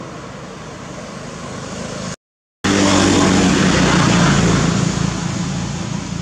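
Engine noise from a motor vehicle running nearby, a steady low hum with noise over it. It cuts out briefly about two seconds in, comes back louder, and fades toward the end.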